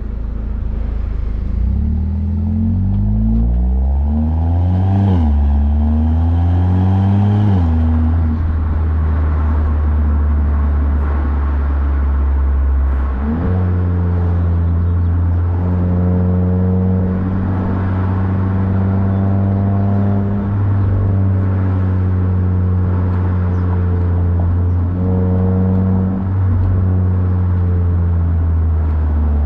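Mazda3 Turbo's 2.5-litre turbocharged four-cylinder, fitted with a short ram intake, pulling under acceleration. Its pitch climbs and drops sharply at two upshifts in the first eight seconds, then it settles into a steady drone at cruise with small dips.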